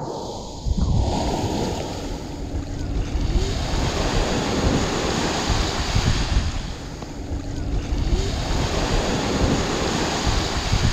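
Sea waves washing in, swelling and easing in loudness, with wind buffeting the microphone.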